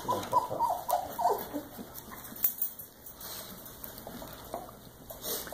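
Nearly three-week-old puppies whimpering: a quick run of short, high squeaks, each dropping in pitch, during the first second and a half, then only a few fainter squeaks.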